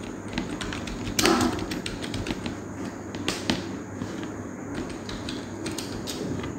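Typing on a computer keyboard: a run of irregular keystroke clicks, with a louder knock about a second in.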